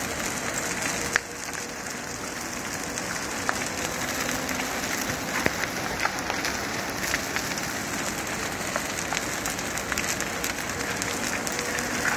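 A pile of cut conifer logs and branches burning hard: a steady crackle of burning wood with many sharp pops, the sharpest about a second in.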